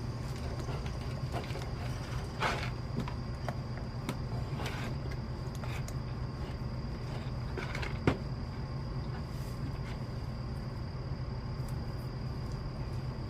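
Steady low hum of a workshop with a faint high-pitched whine, under a few scattered clicks and scuffs of wiring and small parts being handled; the sharpest click comes about eight seconds in.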